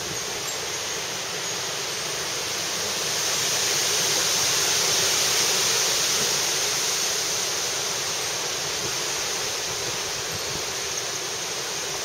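Thunderstorm wind gusting, a steady rush that swells for a few seconds in the middle and then eases.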